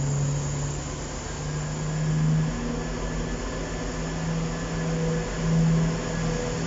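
Diesel train's engine running: a steady low drone whose pitch shifts slightly, swelling in level a couple of times.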